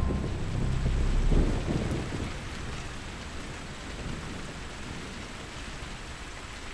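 Steady rain hiss, with a low rumble of thunder dying away over the first two seconds.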